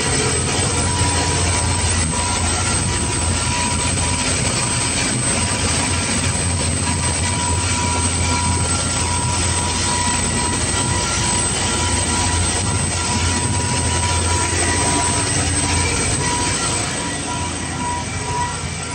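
Motor yacht running at cruising speed: a steady, loud engine drone with wind and water rushing past the hull. It gets a little quieter near the end as it is heard from inside the cabin.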